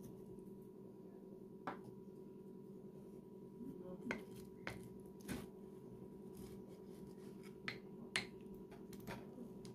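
A wooden handle knocking and clicking against a glass jar packed with pickled green peppers, about seven sharp separate clicks, as garlic cloves are pushed down among the peppers. A low steady hum lies underneath.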